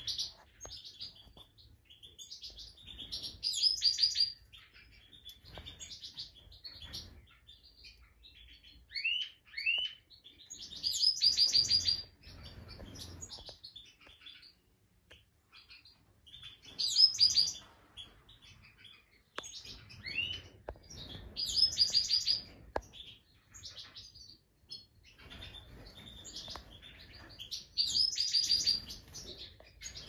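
Black siskins chirping and twittering: short bursts of rapid, high trilled chirps every few seconds, with a few quick rising call notes in between.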